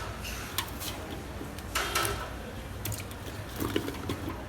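Cooking utensils knocking and clattering a few times, irregularly, over a low steady rumble.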